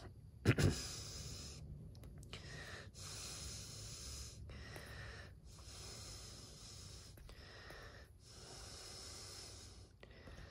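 A person breathing close to the microphone, with a hissy in-and-out rhythm every second or two. A brief louder bump comes about half a second in.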